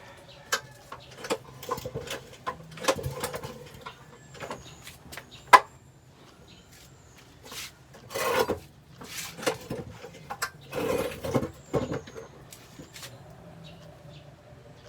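Scattered clicks, knocks and a couple of short scraping rasps from hands working on a small boat engine and its carburetor, with the engine not running.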